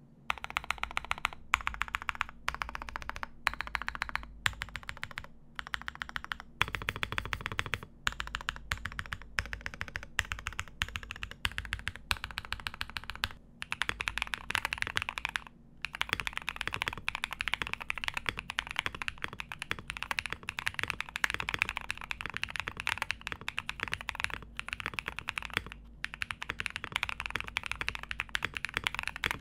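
MM Studio Class80 R2 mechanical keyboard with Bolsa Laguna Blue long-pole switches, lubed WS stabilizers, PBT keycaps and full foam, being typed on. First the modifier keys are pressed one at a time, a few strokes a second with short pauses. About halfway through it turns to steady, fast continuous typing.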